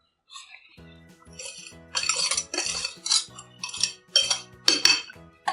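A spoon scraping and clinking inside a mixer-grinder jar as ground spice powder is stirred, in several short bursts, over soft background music.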